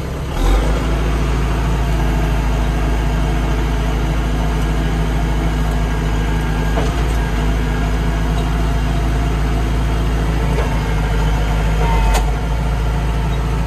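Kubota L5740 tractor's four-cylinder diesel engine running steadily just after a clean start, heard from inside the closed cab. It steps up slightly about half a second in, then holds an even note.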